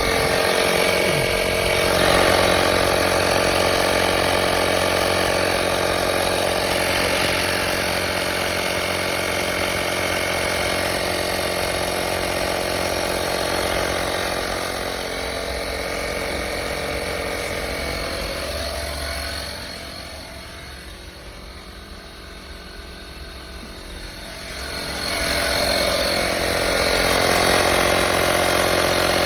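Portable 12V tyre air compressor running steadily with a buzzing motor hum. It drops much quieter for a few seconds in the second half, then comes back up to full level.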